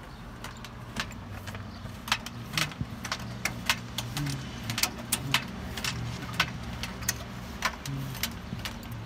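Irregular sharp metallic clicks and taps, a couple of dozen in all, over a steady low hum of running machinery.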